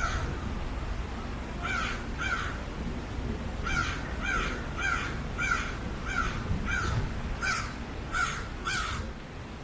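Crow cawing: a pair of harsh caws about two seconds in, then a run of about nine caws roughly half a second apart that stops near the end, over a low steady background rumble.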